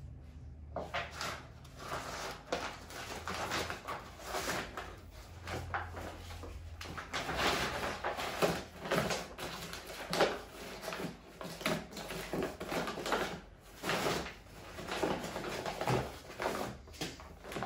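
Brown kraft paper packing rustling and crinkling as it is handled and unrolled from a rolled leather hide, a continuous run of irregular crackles.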